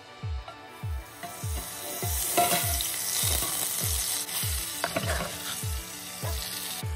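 Butter sizzling in a hot stainless steel pot, a hiss that starts about two seconds in. Background music with a steady beat of falling bass notes about twice a second runs under it.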